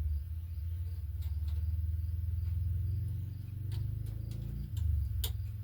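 A steady low hum with a few small sharp clicks and taps scattered through it, as the metal parts of a PL-259 coax connector are handled and pushed together.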